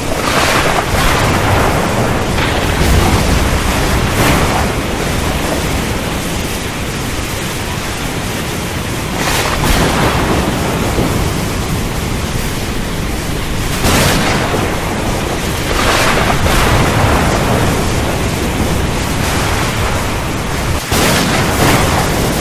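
Thunderstorm: steady heavy rain with thunder cracking and rumbling several times.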